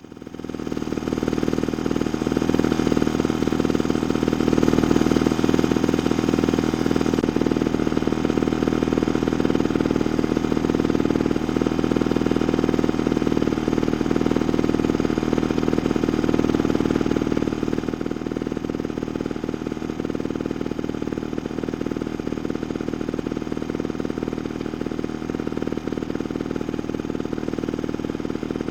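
Piston-engine lawnmower running steadily, its small engine firing in a rapid even beat. It swells up over the first two seconds and settles a little quieter about two-thirds of the way through.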